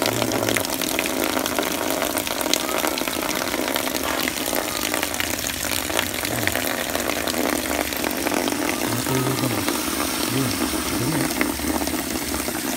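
Water from a garden hose washing through an air conditioner's condenser and splashing down into a plastic basin: a steady rushing, splashing hiss.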